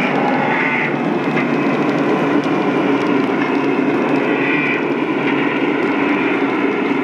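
Lionel O gauge ES44 diesel locomotives running past, their onboard sound systems giving a steady diesel engine drone.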